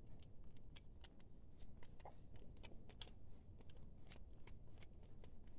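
Faint, irregular small clicks and taps of plastic parts as a printer's replacement control-panel board is pressed and worked into its plastic carrier, its standoffs being pushed toward their holes.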